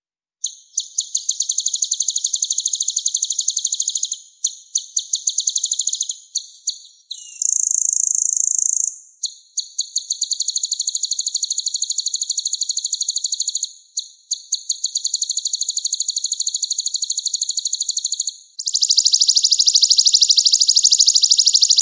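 Konin songbird singing rapid rolling trills in long high-pitched phrases broken by short pauses, with one buzzier, even phrase about eight seconds in.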